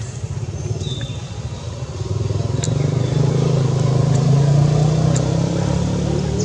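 A motor vehicle's engine running, growing louder about two seconds in and easing slightly near the end, like a vehicle passing close by.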